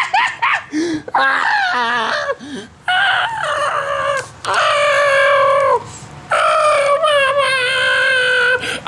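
A man's high-pitched mock screams and wails: short cries at first, then three long drawn-out wails with a wavering pitch.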